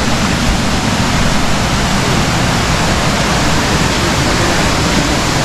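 Steady rush of a small waterfall cascading over rocks into a pool, heard close by.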